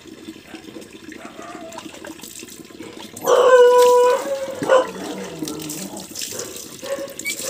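Water poured from a plastic mug splashing over a puppy being bathed, with the puppy giving one loud, steady-pitched howl about three seconds in, lasting about a second.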